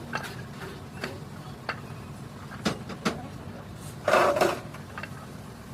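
Scattered sharp clicks and knocks over a steady low hum, with a louder short clatter about four seconds in.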